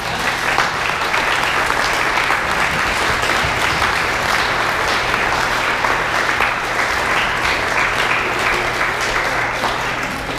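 A room of guests clapping, a dense, steady patter of many hands that starts at once and stops suddenly near the end.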